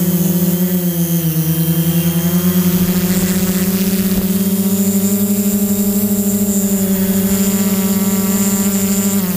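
Drone's motors and propellers buzzing steadily close to the onboard camera, a pitched hum that wavers slightly as the drone climbs. A thin high whine joins it about three seconds in.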